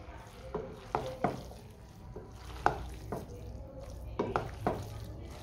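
Spatula stirring and tossing spaghetti in a non-stick frying pan: irregular clacks and scrapes against the pan, about a dozen in all, over a faint sizzle from the hot pan.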